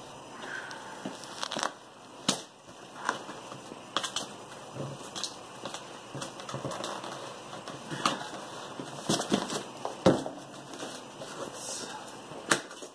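A cardboard product box being worked open by hand: irregular scraping, rustling and crinkling with sharp snaps and knocks, the loudest about ten seconds in.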